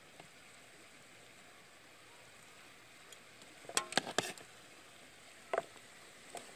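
Knife and plastic plate knocking on a wooden cutting board while fried chicken is being cut up: a quick cluster of sharp clicks and knocks about four seconds in, then two single knocks near the end, over a faint steady background hiss.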